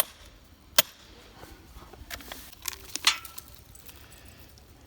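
Hard tool strikes on rock while prying out a crystal specimen: two sharp hits about a second apart, then a few lighter knocks and clinks of loose rock pieces.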